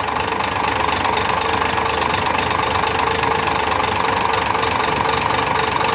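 Diesel dump-truck engine idling with a steady, rapid knock, heard during a cylinder-by-cylinder check with cylinder number 4 being tested to find the knocking cylinder.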